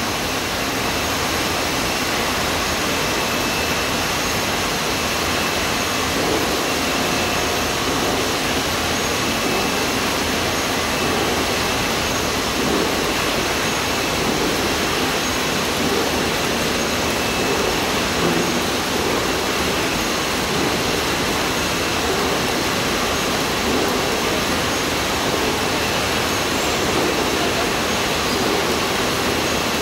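Spiral conveyor running, its slat chain carrying cartons around the helix, giving a steady, even mechanical noise with no change in level.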